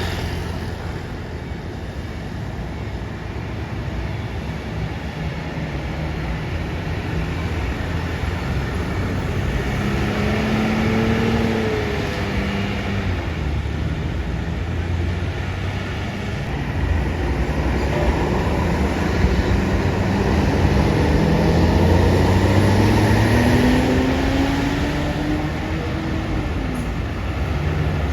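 Heavy bus engines running and pulling away: a steady low rumble with engine notes that rise slowly as they accelerate, growing louder toward the last third.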